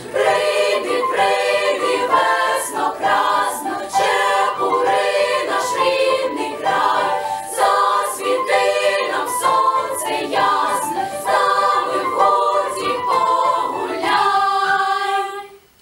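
Children's choir singing a Ukrainian folk song in high voices, phrase after phrase, ending on a long held chord that cuts off just before the end.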